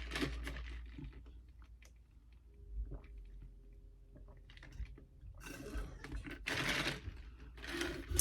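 Close-miked eating sounds: a person chewing, with small clicks, then two loud rustling bursts near the end.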